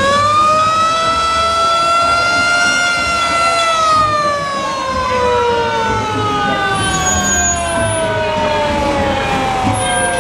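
Antique fire truck's siren winding up steeply to a high wail, holding for a few seconds, then slowly coasting down in pitch. A second, shorter rise in pitch joins about halfway through.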